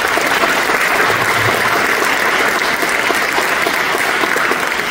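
Audience applauding: steady clapping from many hands.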